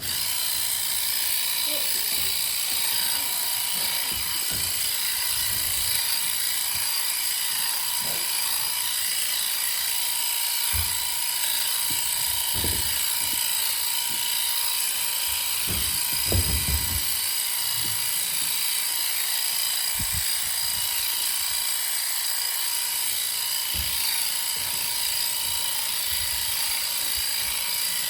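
Electric sheep shears running with a steady high-pitched whine, clipping dirty wool from lambs' back ends during dagging, with occasional low thumps from handling.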